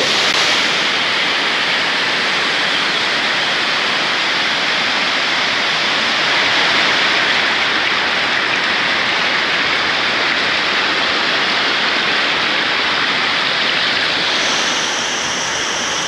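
Waterfall and fast stream rushing over rocks, a loud steady roar of water, with a brighter hiss entering near the end.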